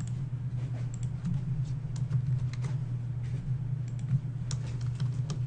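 Computer keyboard typing and mouse clicks as a web form is filled in: short, irregular clicks over a steady low hum.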